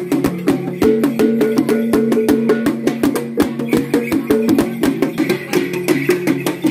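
Traditional dance music: a fast, even clicking beat under short, repeated melodic notes from pitched percussion.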